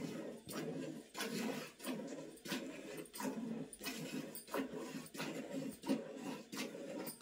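Cow being milked by hand into a steel pail: milk squirting into the pail in regular strokes, about one and a half a second.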